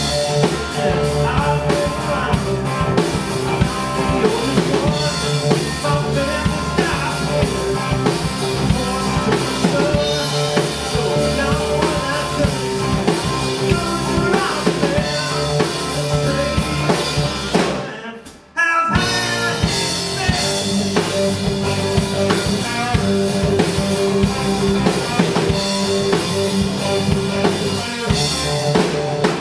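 Live blues-rock band playing: two electric guitars, electric bass and a drum kit keeping a steady beat. About two-thirds of the way through, the sound fades and drops out for a moment, then comes straight back in.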